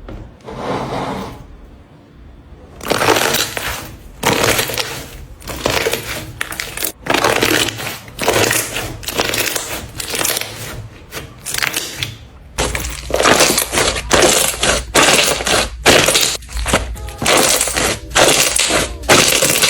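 Bubbles being popped: a dense, irregular run of crackling pops and snaps, with a low rumble underneath in the second half.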